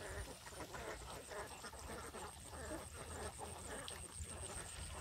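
A flock of domestic ducks foraging, giving soft, irregular quacks.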